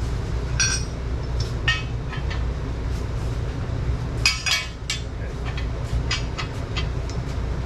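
Loose metal hardware, bolts and sleeves, clinking as it is handled, a few sharp ringing clinks scattered through, over a steady low hum.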